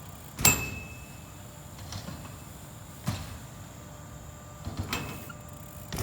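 BMX bike hitting skatepark ramps and coping as a rider goes through a line: a sharp clank with a short metallic ring about half a second in, then further knocks around three seconds and five seconds in.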